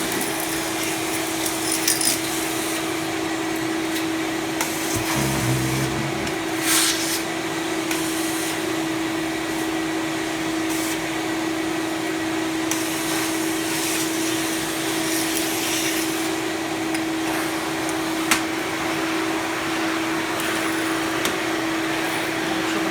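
Delphin 802WD twin-motor industrial wet-and-dry vacuum running steadily while sucking up workshop debris, a constant hum under the rush of air. A few sharp clicks, about 7 and 18 seconds in, as bits of debris rattle up the hose.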